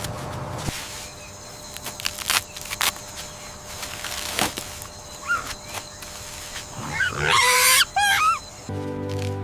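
Scattered clicks and knocks, then about seven seconds in a loud animal call that bends up and down in pitch for about a second and a half. Music starts near the end.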